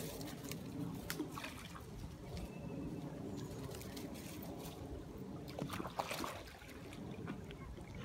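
Fast-flowing stream running and trickling, with a sudden splash about six seconds in as a Jack Russell terrier enters the water.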